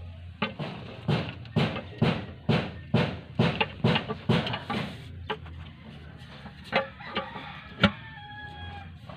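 Sharp knocking, about two knocks a second for the first five seconds, then a few scattered single knocks.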